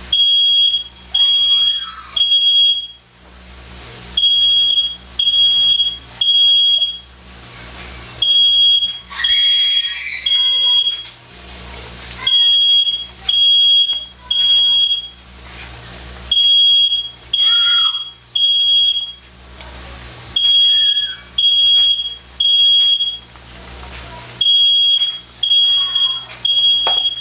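Smoke alarm sounding its evacuation pattern: three loud, high, steady beeps, then a pause of about a second and a half, repeating about every four seconds.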